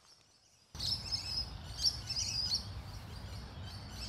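Wild birds chirping and twittering over a steady low background rumble, starting suddenly about a second in after a moment of dead silence.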